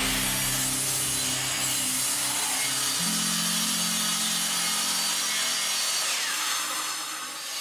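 Table saw blade cutting through a plywood board fed by hand, a steady, even sawing noise.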